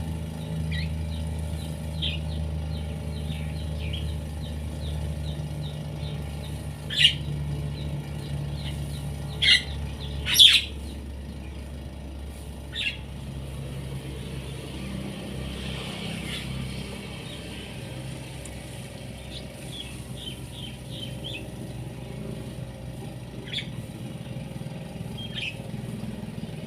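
Small engine of a shallot-field watering machine running steadily, with birds chirping over it and a few louder sharp chirps around seven to eleven seconds in.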